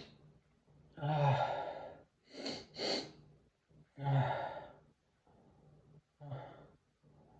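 A person's breathy gasps and sniffs, like the run-up to a sneeze. There are two loud voiced gasps about three seconds apart, two quick sharp sniffs between them, and a softer breath near the end.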